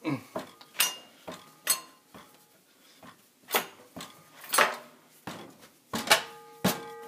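Kitchen dishes and utensils knocking and clinking at an irregular pace, some strikes leaving a short ringing tone; one ring lasts longer near the end.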